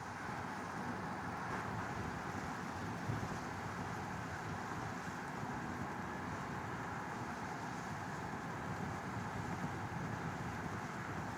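Steady, even background rumble with no music, spread evenly through the low and middle range with no distinct events.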